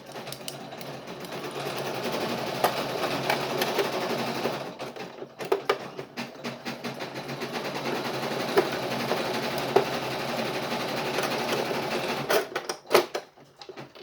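Brother NV880E embroidery machine running steadily, with a brief break about five seconds in and a few sharp clicks near the end.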